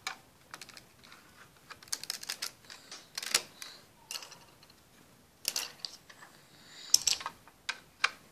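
Scattered light clicks and taps of plastic LEGO bricks being handled on a wooden table, coming in small clusters with short quiet gaps between them.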